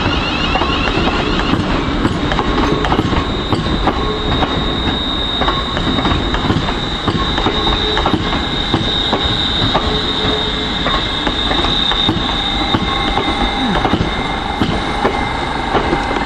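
Train running through the station: wheels squealing on the rails, with a high steady squeal through the middle, and repeated clicks as the wheels pass over rail joints.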